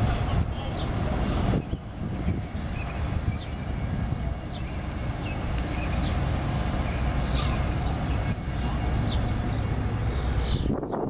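Metra EMD F40PH diesel locomotive approaching with a steady low engine rumble, under a high, rapidly pulsing insect chirp.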